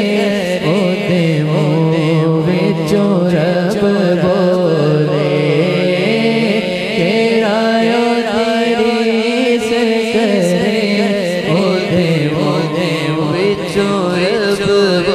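Male naat reciter singing into a microphone, the voice bending and ornamenting each line, over a steady low drone that holds throughout.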